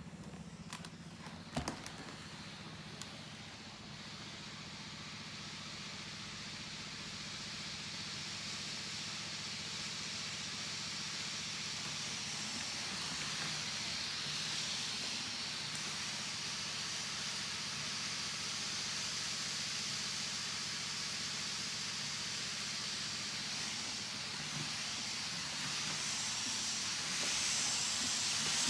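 Shark corded vacuum cleaner running: a steady motor hum under a strong hiss of rushing air that grows slowly louder, with a couple of clicks about one and a half seconds in.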